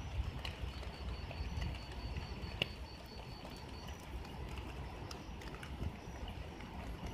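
Light drizzling rain: an even hiss with scattered clicks, the sharpest about two and a half seconds in, over a low rumble, with a faint high tone pulsing evenly above it.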